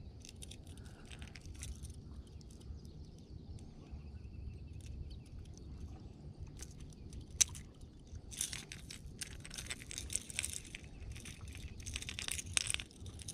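Treble hooks and split ring of a topwater lure clinking and rattling as the lure is handled, a scatter of small metallic clicks that come thicker in the second half, with one sharper click about halfway through. The hook is bent and caught in the split ring. Under it runs a low steady rumble.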